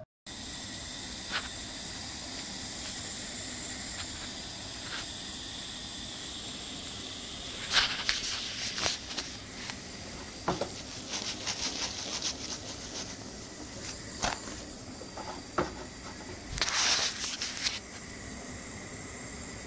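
Steady hiss of a thin flatbread cooking in a pan on a gas burner, with scraping and clinking from a utensil several times in the second half, loudest about 8 seconds in and near the end.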